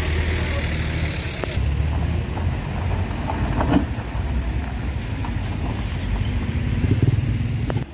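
Vehicle engines running under load on a rough dirt road, a steady low rumble as a minibus pulls away and a small pickup truck drives past, with a few sharp knocks along the way.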